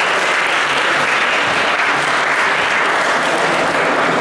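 An audience applauding with steady, even clapping.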